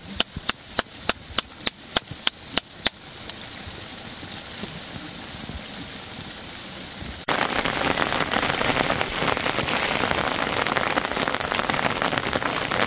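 Hands slapping roti dough flat between the palms, about four sharp slaps a second, stopping about three seconds in. A faint steady hiss of rain follows. About seven seconds in, it switches abruptly to louder, steady rain.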